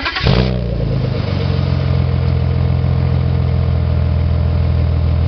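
BMW 328i engine heard at the exhaust tailpipe, starting up: a short burst as it cranks and fires, then settling within the first second into a steady, even idle.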